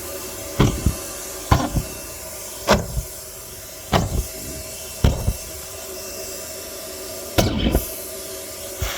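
Car wash vacuum cleaner running with a steady hum, broken by a series of loud knocks and rattles about once a second, with a longer rattle near the end.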